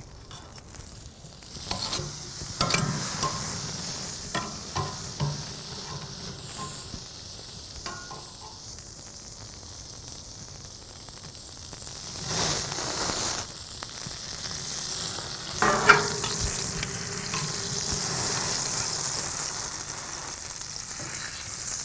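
Tomahawk ribeye sizzling steadily on a hot charcoal grill grate while it is mopped with an oil-and-vinegar basting liquid. A few knocks and clatters sound over the sizzle, the sharpest about two-thirds of the way through.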